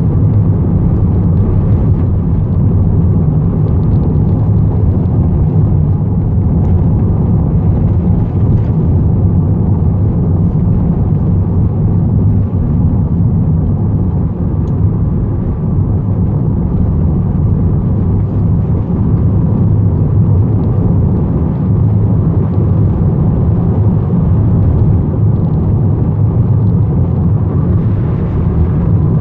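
Steady road and engine noise inside the cabin of a Volkswagen T6 van driving at a steady cruise: a constant low rumble.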